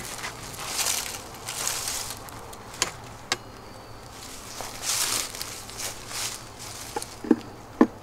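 Honeybees buzzing around an open hive, in recurring hissy swells, with several sharp clicks as a metal frame hanger is handled and set onto the hive body; the loudest clicks come near the end.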